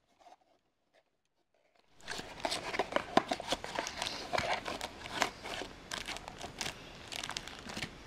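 Small cardboard toy box being opened and the clear plastic wrapping inside crinkled by hand: a dense run of crackles and rustles starting about two seconds in.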